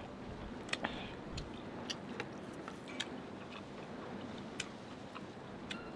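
A person chewing food close to the microphone, with scattered short, sharp wet clicks and smacks from the mouth.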